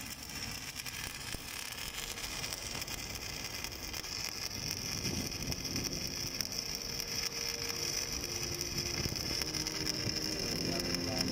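Stick-welding arc on an overhead pipe root pass: a steady crackle and hiss from the burning electrode. Faint music comes in over it near the end.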